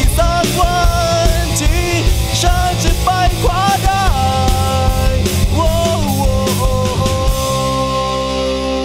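Rock band's closing bars: a distorted electric guitar lead line with string bends over drums and bass. About seven seconds in the drums stop and a final held chord rings out.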